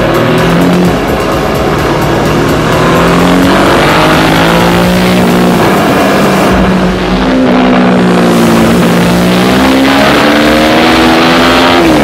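Yamaha Tracer motorcycle engine under way, its pitch rising and falling with the throttle, over rushing road and wind noise. Heard from a camera mounted low by the front wheel. The sound dips briefly about seven seconds in, and the revs fall near the end.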